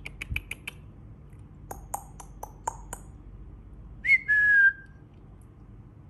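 Baby cockatiel calling: two quick runs of short chirps, then about four seconds in a louder whistled call that slides up and settles into a short held note.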